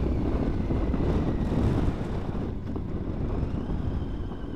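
Motorcycle riding along: wind noise buffeting the helmet-mounted microphone over the steady hum of a Triumph Tiger 800's three-cylinder engine, the whole getting a little quieter about two seconds in.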